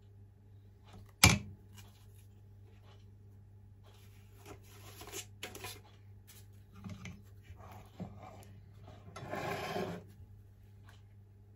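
A ladle knocking, scraping and clinking in a stainless steel bowl of batter, with one sharp knock about a second in as the loudest sound and a short rustling burst near the end.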